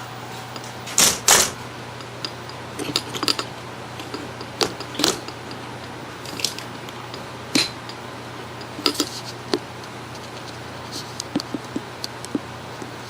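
Irregular clicks and clatters of small hard objects being handled, the loudest pair about a second in, over a steady low hum.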